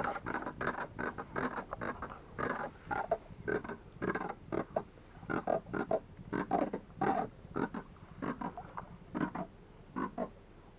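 A rapid, uneven run of short calls, several a second, from a freshly landed sierra, a thorny catfish, lying in the bottom of the canoe.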